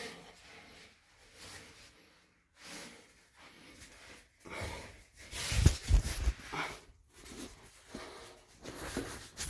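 A person's breathing and the rustle of their movement while crawling over cave floor, in short rushes of noise. There are heavier knocks and rubbing against the microphone about six seconds in.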